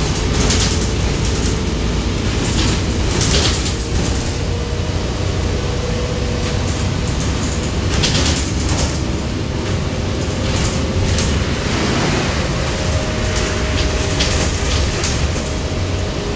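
Cabin noise of a 2020 Gillig BRT 40-foot transit bus under way: a steady low rumble of engine and road with a faint steady whine, and brief rushes of hiss every few seconds.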